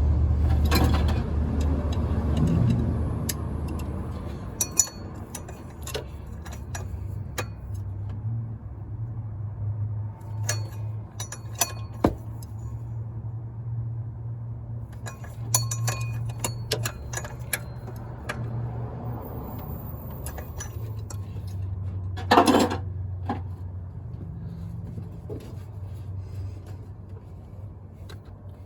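Scattered metallic clinks and taps of hand tools on engine parts, with one louder knock about 22 seconds in, over a steady low hum. A low vehicle rumble fades out over the first few seconds.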